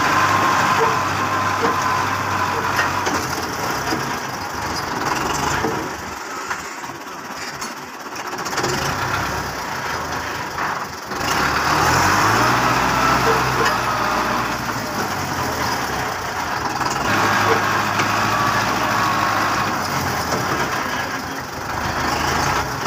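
Belarus tractor's diesel engine working hard under load, pushing a heavily loaded trolley with its wheels in loose soil. The revs drop off about six seconds in and climb again a few seconds later, rising and falling as the driver works the throttle.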